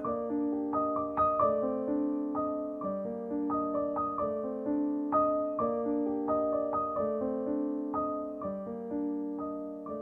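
Background solo piano music: single notes and chords struck about every half second and left to ring out.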